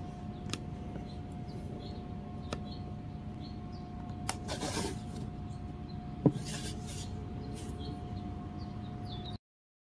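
Small clicks and rubbing of the plastic Treysit Sirometer as its rim is turned by hand to run its wire in and out, with one sharper knock about six seconds in. All sound cuts off near the end.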